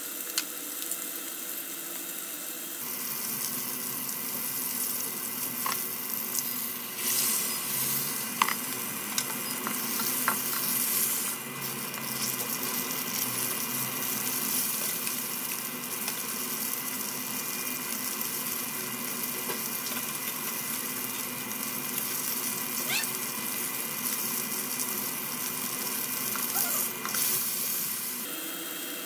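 Wagyu beef patty sizzling as it fries in hot fat in a cast-iron skillet: a steady hiss of frying with scattered small pops.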